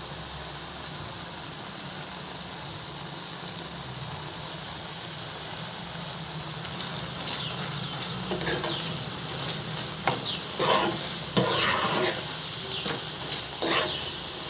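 Macaroni in a creamy white sauce simmering in a pan with a steady hiss, then from about seven seconds in a spoon stirring and scraping through it in irregular strokes, mixing in the salt just added.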